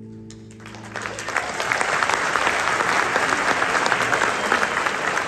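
Audience applause at a live rock show. It breaks out about a second in, as the band's final held chord fades away, and then carries on steadily.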